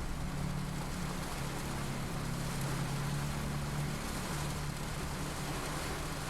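Steady rain falling, a continuous even hiss, with a low steady hum underneath that weakens about four seconds in.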